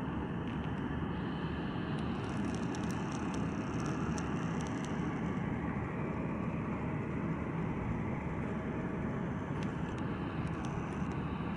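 Jet airliner engines heard as a steady low rumble from a jet climbing away after takeoff.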